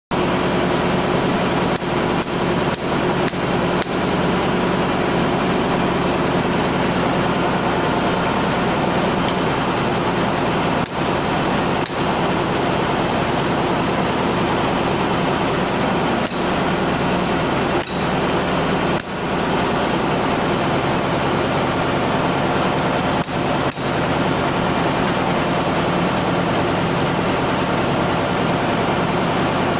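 Steady drone of running engine-room machinery, with light metallic clinks of spanners against the compressor's cooler fittings as its nuts are tightened: a quick run of clinks a couple of seconds in, then scattered clinks in the middle stretch.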